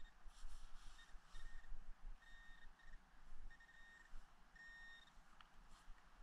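Handheld metal-detecting pinpointer beeping as it is probed through the loose soil of a dug hole, signalling a metal target close by. About seven steady, same-pitched beeps come at uneven intervals, some short and some longer, the longest a little after two seconds and near five seconds in.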